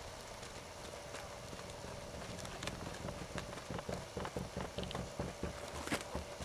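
Hoofbeats of a cantering horse on a dirt arena, a run of dull thuds that grow plainer from about halfway through as the horse comes nearer.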